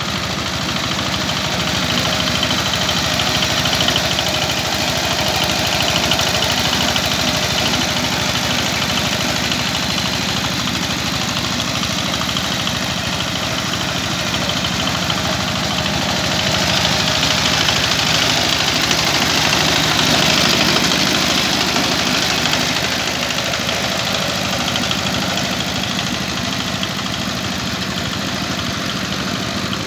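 Two-wheel power tiller's single-cylinder diesel engine running steadily under load while tilling, slightly louder for a few seconds past the middle.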